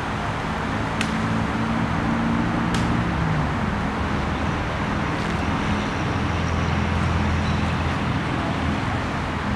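A motor vehicle's engine hum over steady road-traffic noise, with a pitch drop about three seconds in. Two sharp clacks come through, one about a second in and one just before three seconds.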